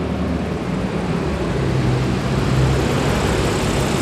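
Steady vehicle noise: a broad rush with a low engine hum underneath.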